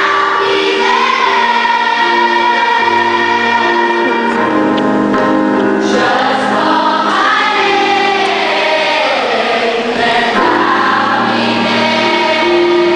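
Children's choir singing together, with held notes and melody lines that glide up and down.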